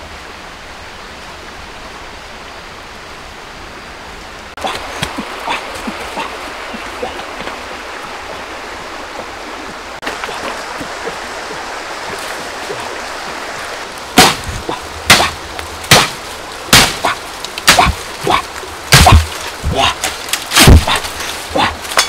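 Bamboo stalks being hacked with a blade: a run of loud, sharp knocks about once a second, starting a little past halfway. Before that there is only a steady outdoor hiss with light rustling.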